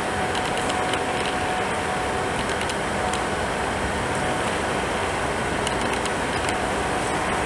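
Class 37 diesel locomotive's English Electric V12 engine running steadily as it creeps slowly into the platform.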